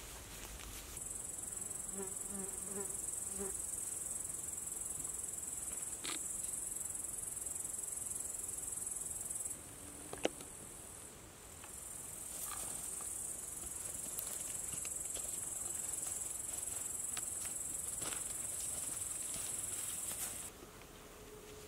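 Steady, high-pitched chirring of insects in tall grass. It stops suddenly about ten seconds in, comes back a couple of seconds later, and stops again near the end. A single sharp click comes during the break.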